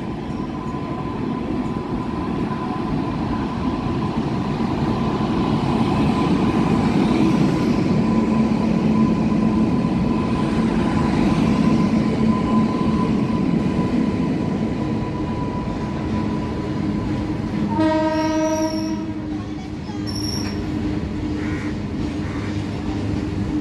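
A WAG-9 electric locomotive hauling loaded coal wagons passes close by: a steady high whine and a swelling rumble as the locomotive goes past, then the ongoing rumble of the wagons rolling. Past the middle a horn sounds once, a blast of about a second, followed shortly by a brief high squeal.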